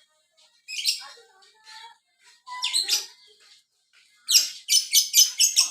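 Lovebird chattering in bursts of shrill, high calls, then a fast run of sharp chirps near the end.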